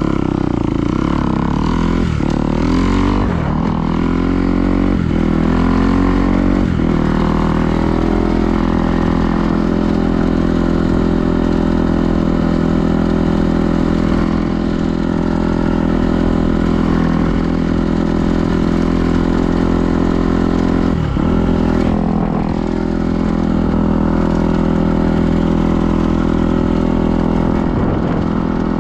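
An engine running; its pitch rises and falls several times over the first few seconds, then holds steady.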